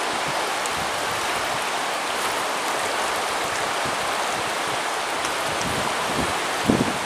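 Steady rush of river water flowing past the bank, with one low thump near the end.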